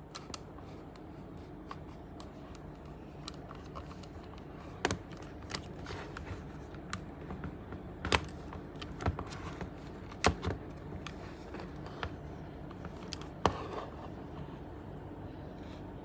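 Hands handling and turning a hard plastic Ankylosaurus toy: light rubbing and scraping, with a handful of sharp plastic clicks and taps scattered through.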